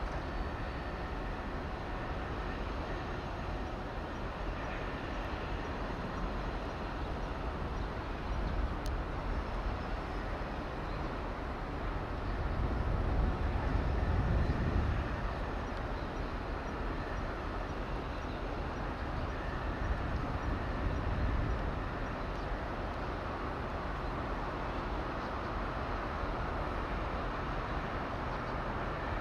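Steady outdoor background rumble with no clear single source, swelling louder for a few seconds around the middle.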